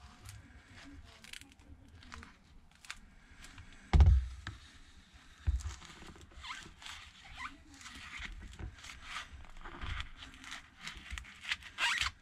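A thin plastic prying card scraping and crackling as it is worked through the screen adhesive of a smartphone. There is a loud thump about four seconds in and a lighter one a second and a half later.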